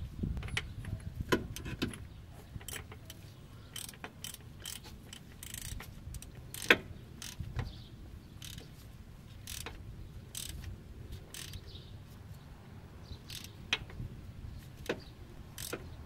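Hand socket ratchet on an extension clicking in irregular short runs as it snugs a spin-on oil filter adapter onto the engine, with one sharper metal clack about seven seconds in.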